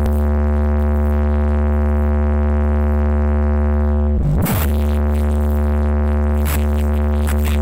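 Bass-heavy electronic DJ music playing loud through a large speaker stack. A long held deep bass tone dips in pitch about four seconds in, and sharp hi-hat-like ticks come back near the end.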